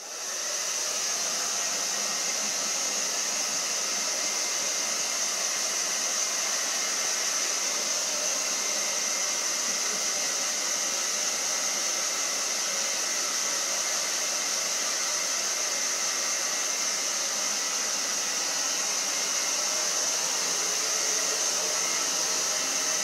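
Hair dryer switched on and running steadily, a constant rush of air with a strong high hiss that comes up to full power in the first half second.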